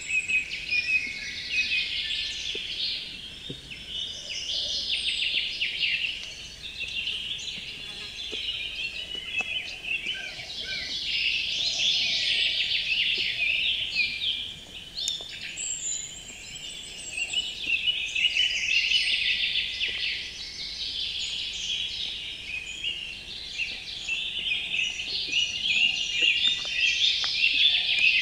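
A chorus of songbirds singing at once: rapid chirps and trills that swell and fade every few seconds, with a few high whistled notes.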